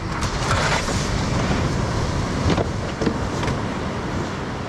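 Wind rumbling on the microphone over steady surf, with a few short knocks from plastic fish crates being handled.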